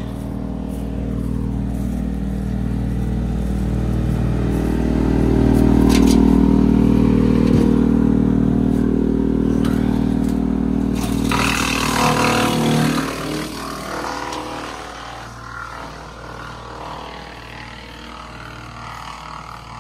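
Bobcat tractor and Woodmaxx wood chipper running steadily. About eleven seconds in, a branch goes through the chipper with a brief loud burst of chipping noise, and after that the engine sounds fainter.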